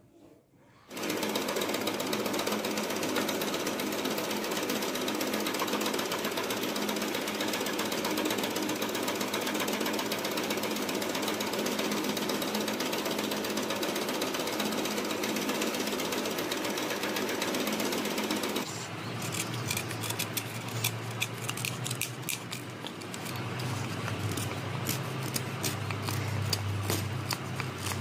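Electric scroll saw running and cutting a wooden horse shape: a loud, steady, rapid buzz that starts about a second in. About two-thirds of the way through the sound turns rougher, with many sharp clicks over a lower hum.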